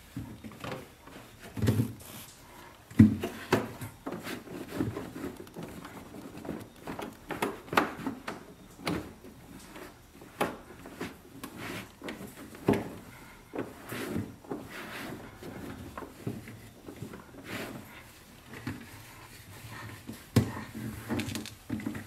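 A cloth wiping and rubbing the plastic inner walls of a refrigerator, with irregular knocks and bumps against the plastic liner; the loudest knock comes about three seconds in.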